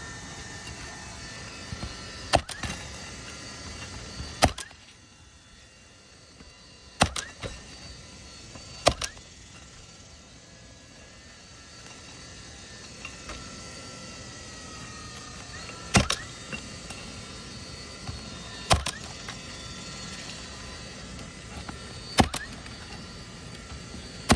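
Nail gun firing roofing nails through asphalt shingles, about eight single sharp shots a few seconds apart, over a steady background hiss. The nails are going into a replacement shingle set in among old 20-year shingles during a repairability test.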